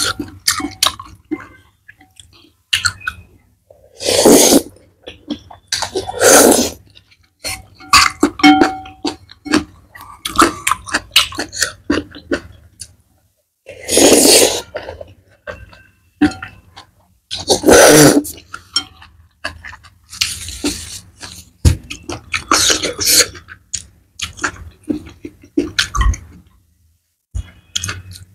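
Close-up eating sounds of a person eating black noodles: about six loud, half-second to one-second slurps, with wet chewing and short clicks of chopsticks between them.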